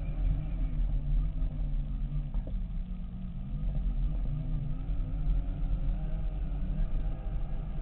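Segway x2 electric drive whining as it rolls along, its pitch wavering up and down with speed, over a low rumble from the tyres on a gravel track.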